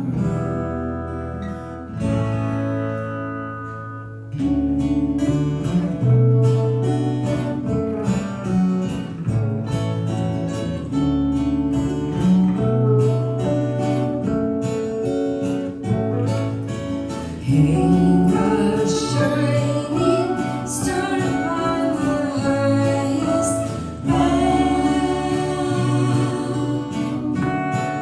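Several acoustic guitars playing a slow Christmas song arrangement together, with singing.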